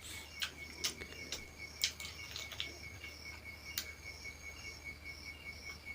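Crickets chirping in a steady, evenly pulsing trill, with scattered sharp clicks over it.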